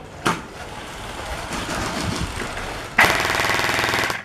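Airsoft guns firing: a single sharp shot just after the start, then about three seconds in, a rapid full-auto burst that rattles on to the end.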